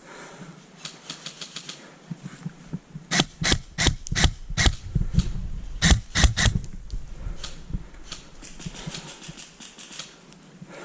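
Airsoft guns firing. Near the start and again near the end comes a rapid rattle of fainter shots. In the middle are two runs of loud single shots, about five and then three, each a sharp crack.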